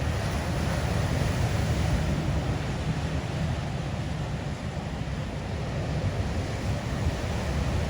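Steady noise of big ocean surf with wind buffeting the microphone.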